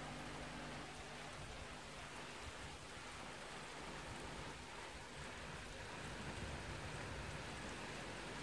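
Rain falling steadily: a faint, even hiss, a little louder from about six seconds in.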